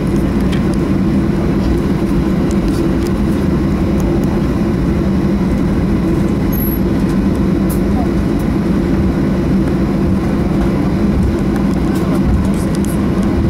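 Steady cabin noise inside a Boeing 737-800 while it taxis: its CFM56 jet engines run with an even low drone under a constant rushing noise, and the loudness neither rises nor falls.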